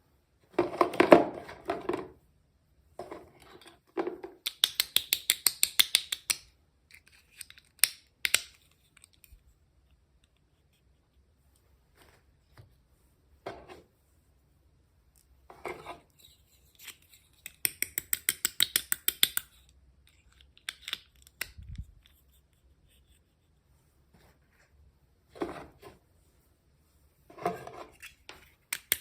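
Hands handling and opening toy packaging. Rustling bursts alternate with several short runs of rapid, even clicks of about ten a second, separated by brief pauses.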